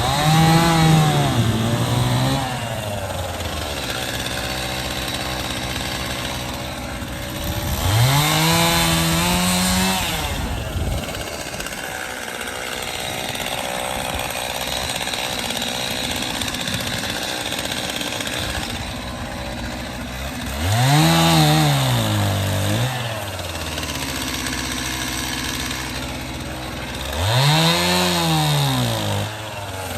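Two-stroke chainsaw running, revving up and back down four times, with a steady lower running sound in between.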